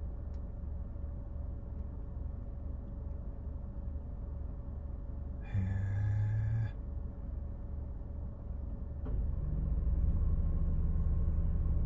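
Steady low hum of a stopped car idling. A short, sharper sound comes a little past the middle, and about nine seconds in the hum grows louder and fuller and stays up.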